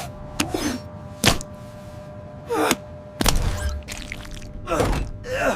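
Animated sound effects: three sharp thunks or knocks, with short falling gasps and grunts in between, as a minifigure handles sticky goo.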